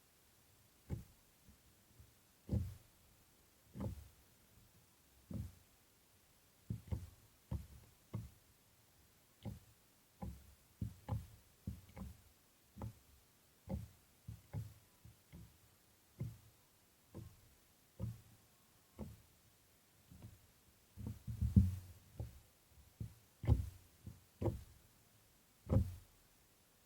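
Slime being handled by hand, giving a string of short soft thuds and pops. They come irregularly, roughly one a second, with a louder cluster a little past two-thirds of the way through.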